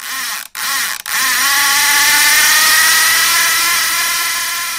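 A loud, steady mechanical whine with several pitches stacked together, cut off twice briefly in the first second and then held, easing off slightly near the end.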